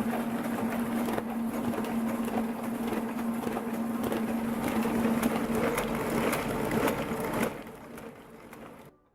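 Gronhi one-colour printing press running, a steady hum under a fast mechanical clatter. About seven and a half seconds in the hum stops and the clatter fades away to silence as the press stops.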